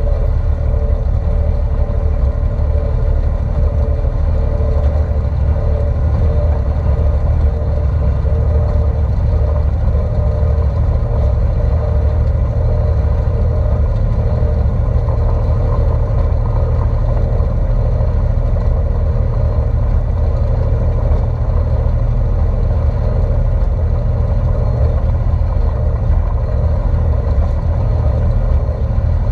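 Deutz D4506 tractor's air-cooled four-cylinder diesel running steadily at an even engine speed.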